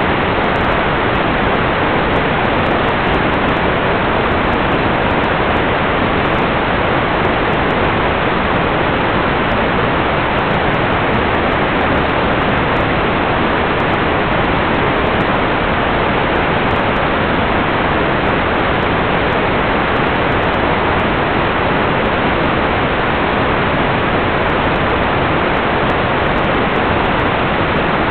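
Steady, loud static hiss with no tones or breaks: the noise of an analog video receiver picking up no signal.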